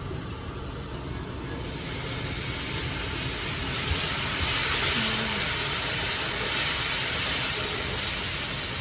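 Water poured a little at a time into hot oil and toasted curry powder, sizzling and hissing loudly as it turns the spice into a paste. The sizzle starts about a second and a half in and builds.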